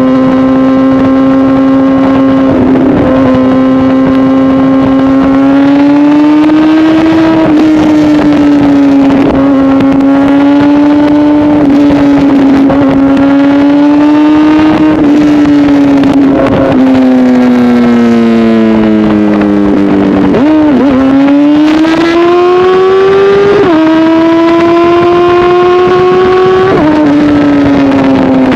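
Honda CBR1000RR inline-four through an SC-Project aftermarket exhaust, running loud with a steady, buzzy engine note that rises and falls gently with throttle. In the last third the pitch jumps sharply several times, as with gear changes.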